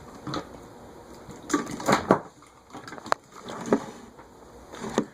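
Irregular clicks and knocks of a phone being handled and propped against a fan speed control, with a cluster of knocks about a second and a half in.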